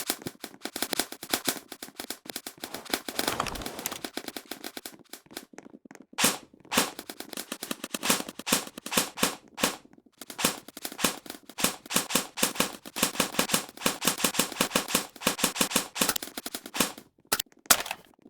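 Airsoft guns firing in rapid strings of sharp shots, with short breaks between the strings.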